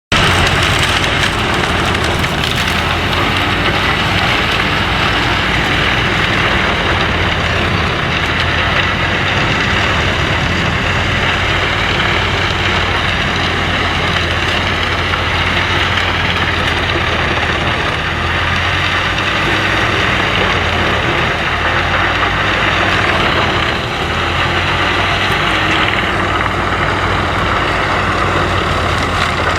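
Wood chipper running, a loud steady engine drone under a dense rushing hiss.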